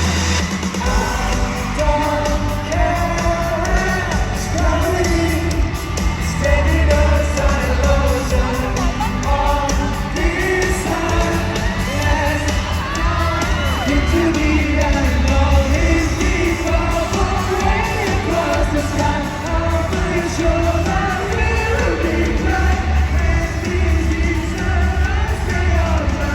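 A pop song sung live over a backing track with a heavy bass beat, played through a hall's PA at a sound check.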